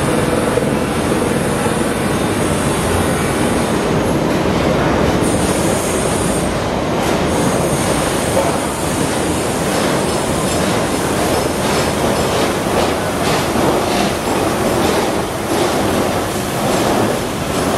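Wengernalpbahn train of old coaches and BDhe 4/4 electric railcar rolling slowly past along the platform. A thin high wheel squeal runs through the first half, then the wheels give a run of regular clicks over the rail joints.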